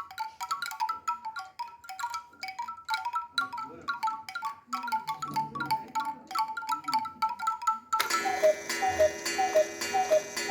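A cuckoo clock's music box plucks a tinkling tune of short bright notes. About eight seconds in, it is abruptly replaced by a fuller sound with steady tones and a note repeating about twice a second.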